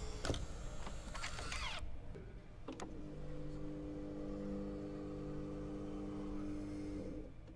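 Electric-motor actuator sound effects of a car's interior parts moving. About two seconds of whirring that sweeps up and down in pitch, a click, then a steady motor hum for about four seconds that cuts off near the end.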